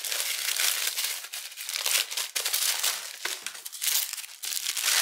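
Tissue paper crinkling and rustling continuously as hands unwrap a paper-wrapped notebook, with the paper tape and strap being pulled away from the wrapping.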